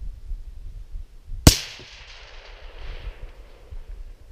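A single shot from a suppressed AR-15 SPR in .223 with a SilencerCo Omega suppressor, about a second and a half in, sharp and followed by an echo that fades over about two seconds.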